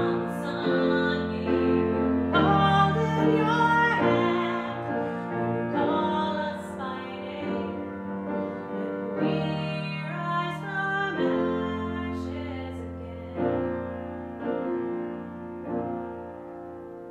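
A grand piano accompanying a woman's solo singing voice in a slow, gentle song. The voice drops out after the first few seconds and the piano plays on alone, its closing chords fading away near the end.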